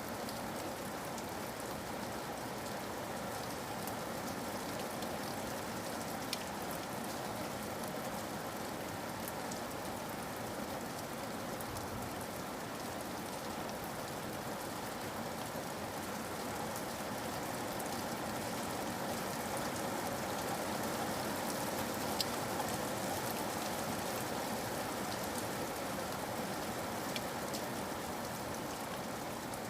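Steady rainfall: an even hiss of rain with scattered individual drops ticking through it.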